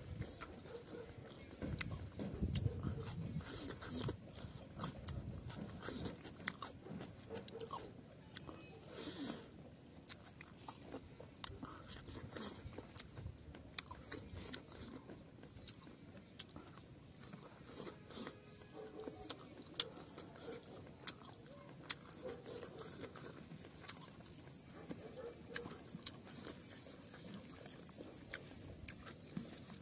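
Close-up eating sounds of a man chewing rice and pork liver curry: wet chewing and lip smacks with many small, sharp clicks at irregular intervals.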